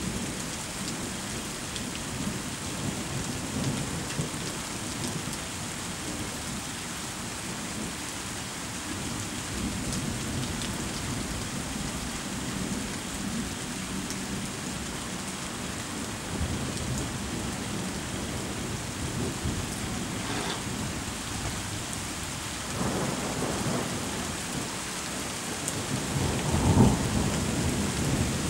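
Thunderstorm: steady rain falling, with low thunder rumbling on and off and a louder peal of thunder near the end.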